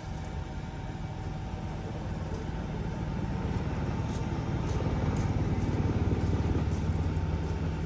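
A low engine rumble made of fast, even pulses, growing gradually louder.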